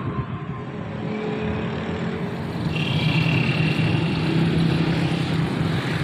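Sugarcane juicer machine's motor running steadily, with a continuous hum that grows a little louder about two and a half seconds in.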